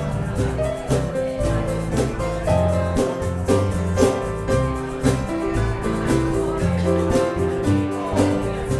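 Music with held notes over a bass line and a steady beat.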